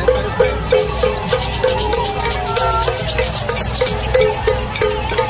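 Latin percussion music with a steady beat: maracas shaking in rhythm over a low drum pulse and a short note figure that repeats about two to three times a second.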